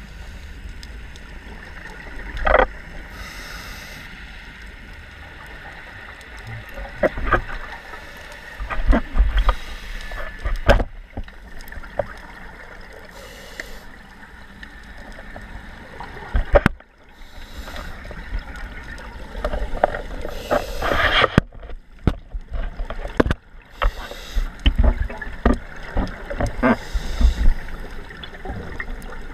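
Scuba divers breathing through regulators underwater: a hiss on each inhale about every five or six seconds, and irregular bursts of exhaled bubbles, heard through an underwater camera housing. Scattered sharp clicks and knocks come through as well.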